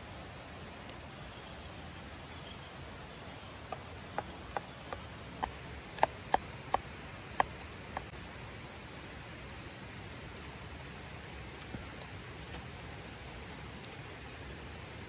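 Kitchen knife chopping on a wooden cutting board: about ten sharp knocks between about four and eight seconds in, loudest near the end of the run. A steady high insect drone continues underneath.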